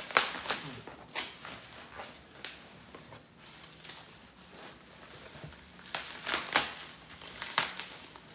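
Clear plastic packaging crinkling and rustling as hands dig through it inside a cardboard box. The crackles come in irregular bursts, loudest just after the start and in a cluster about six to eight seconds in.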